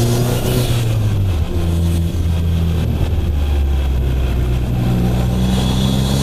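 Abarth 500's turbocharged 1.4 four-cylinder engine pulling under acceleration; its note drops about a second in, as at a gear change, then climbs steadily again.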